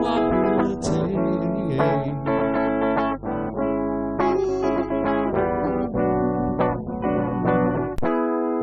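Guitar playing an instrumental passage of a song, with plucked and strummed notes; the low notes drop out about eight seconds in.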